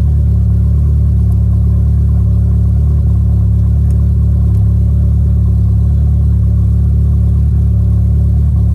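Volkswagen GLI's engine idling steadily, left running so the fresh coolant works its way into the lines after a coolant flush.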